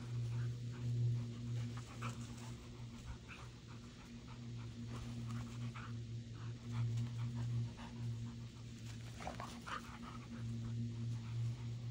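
Two Siberian huskies playing rough together, panting hard, with short scattered mouth and breath sounds and a brief whine-like sound near the end. A steady low hum runs underneath.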